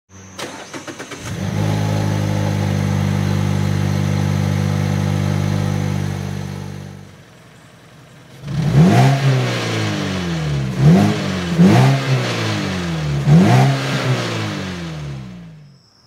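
2014 Mazda3's 2.0-litre four-cylinder engine cranking briefly and catching, then running at a steady idle. After a short pause it is revved four times, each rev rising and falling quickly.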